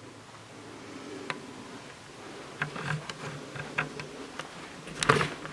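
Scattered light clicks and soft footsteps of someone moving slowly through a small room, with a louder clatter of clicks about five seconds in.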